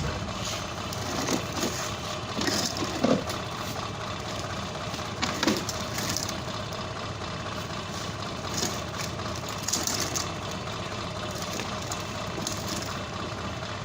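Truck engine running steadily, with a few short knocks through it.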